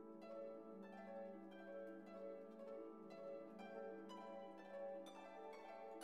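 Quiet background music: a gentle melody of plucked-string notes.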